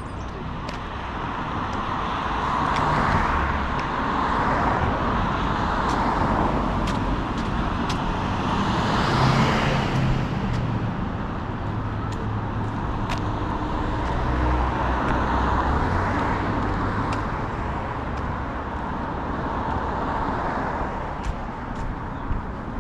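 City street traffic: cars driving past one after another, the engine and tyre noise swelling and fading with each pass, loudest about nine or ten seconds in.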